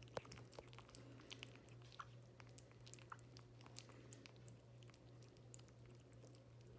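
Two kittens eating soft, wet kitten food from a glass dish: faint, irregular little chewing and licking clicks. A steady low hum runs underneath.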